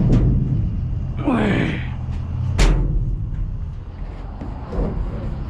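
Rummaging in a metal dumpster: a knock, a short squeak that drops and then rises in pitch, and a loud bang about two and a half seconds in, over a steady low hum.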